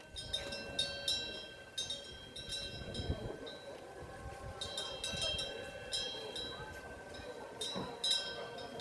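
Metal wind bell (pungyeong, the Korean eaves bell) ringing irregularly as the wind swings its clapper: clusters of light strikes with a lingering high ringing tone, a quieter spell in the middle, over a low rush of wind.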